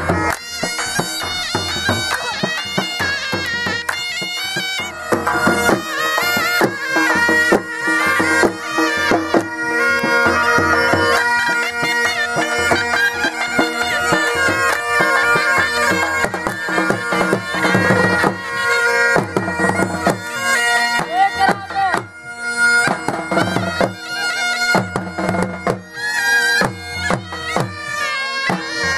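Saraiki jhumar folk music played on a been, a reedy pipe that holds a steady drone under its melody, with dhol drum strokes keeping the beat.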